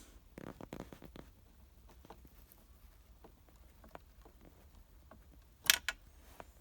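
Light plastic clicks and taps from hands working the lamp socket and trim inside a pickup's gear-shifter housing, with a louder pair of sharp clicks near the end.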